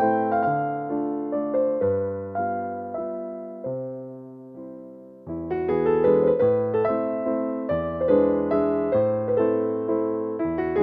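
Background piano music: a gentle tune of struck, decaying chords that thins out and fades in the middle, then comes back fuller about five seconds in.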